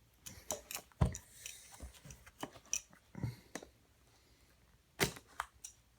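Irregular clicks, scrapes and crinkles of a sealed VHS case's plastic wrap and security tape being cut and pulled open. Louder knocks come about a second in and again about five seconds in.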